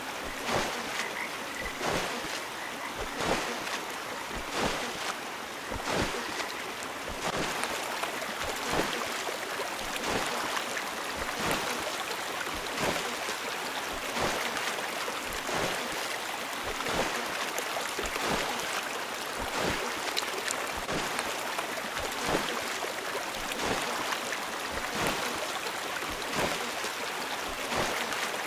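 A mill sound-effects mix playing: steady running water with regular water-wheel splashes about once a second, and a frog croaking. The mix changes about seven seconds in, after which the splashes come faster.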